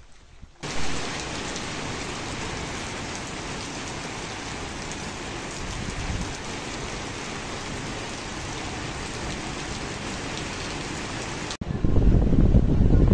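Steady rain falling on a wet street, an even hiss. It starts abruptly just after the beginning and cuts off suddenly near the end, giving way to a louder, lower indoor sound.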